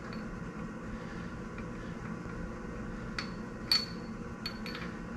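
Four light metallic taps with a brief ring, close together about three seconds in, the second the loudest: a hammer tapping a triple-square bit into a stripped Allen-head main cap cross bolt on an Audi V8 block. A steady low hum runs underneath.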